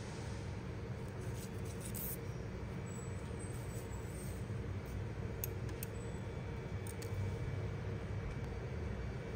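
Steady low background rumble, with a few faint light clicks as a small multi-hook fishing rig is handled and set down.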